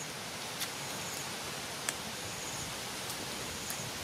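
Steady outdoor hiss of forest ambience, with a short high insect chirp repeating about once a second. A few sharp faint clicks sound over it, the sharpest about two seconds in.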